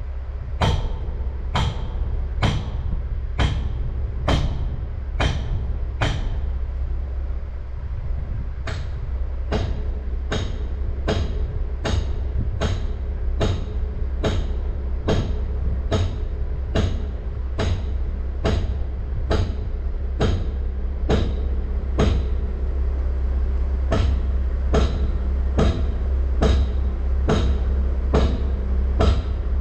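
A truck engine idling with a steady low rumble, under a sharp, regular metallic click about once a second that pauses briefly twice and comes a little quicker after the first pause.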